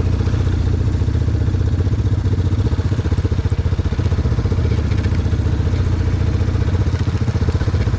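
Quad ATV engines running at low speed, heard on board a red Honda quad with other quads close alongside: a steady, even engine throb.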